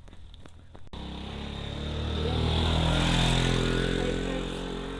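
Motorcycle riding uphill past the listener: its engine note starts suddenly about a second in, swells to a peak around the middle, then fades as it moves away.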